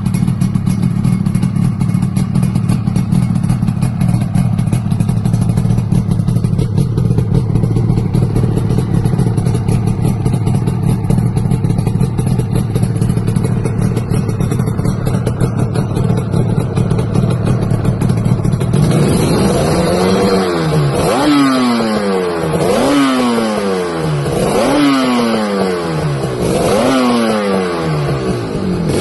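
Yamaha RD350 two-stroke twin on a stainless racing exhaust with carbon silencers, idling steadily, then blipped repeatedly from about two-thirds of the way through, the revs rising and dropping back about every two seconds.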